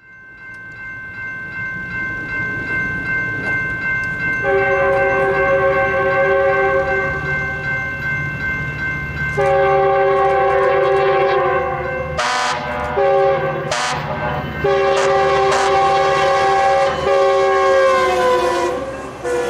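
Metrolink commuter train's multi-chime air horn sounding a series of long chord blasts, its pitch sliding down near the end as the train passes. A fire truck answers with short, sharp horn blasts between them. A steady high tone sounds through the first half and stops.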